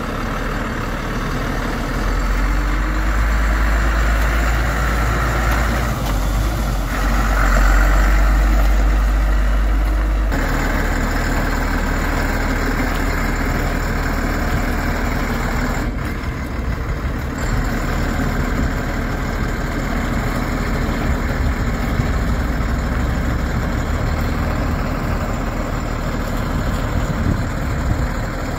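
1992 Ford F700 bucket truck's engine idling, with a deep, heavy rumble for the first ten seconds. About ten seconds in the sound changes abruptly to a lighter, steady idle.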